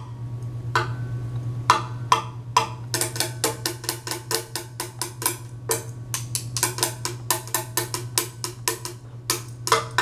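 Two thin sticks drummed on a tabletop: a few spaced taps, then from about three seconds in a fast run of several strikes a second, over a steady low hum.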